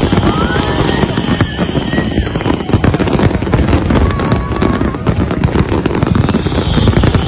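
Fireworks display in a dense barrage: rapid, unbroken bangs and crackling from many shells bursting at once.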